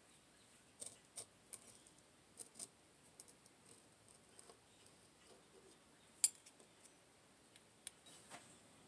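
Faint, scattered clicks and light scrapes of small metal hand tools, a brass tube and a spoon-like tool, working on a petrobond sand mold on a wooden board, with one sharper click about six seconds in.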